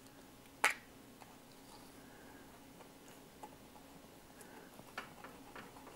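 Light, scattered clicks and ticks of old gasket material being picked and scraped off an oil cooler's mating surface, with one sharper click a little under a second in.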